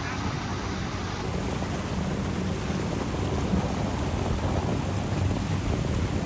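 Motorboat under way: a steady engine hum under the rush of water and wind.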